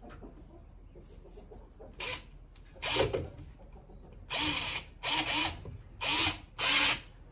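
Cordless drill driving a screw into a wooden coop frame, its motor whining in six short bursts: two brief ones about two and three seconds in, then four of about half a second each close together.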